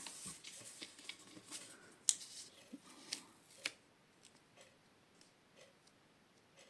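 Paper and card being handled on a craft table: soft rustles and a few sharp clicks over the first few seconds, then only faint ticks.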